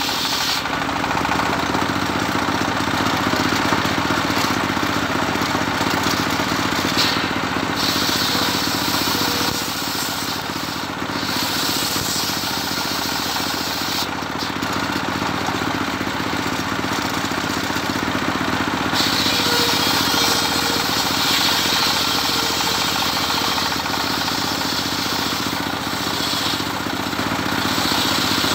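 Engine-driven homemade circular saw bench running steadily, its blade ripping a Medang wood board into beams. There is a continuous engine drone, and the cutting hiss thins briefly a few times as the board is fed through.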